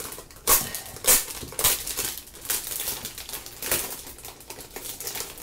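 Clear plastic sleeve of sample vinyl and cardstock sheets being handled and opened: a series of crinkles and rustles, the sharpest about half a second and just over a second in.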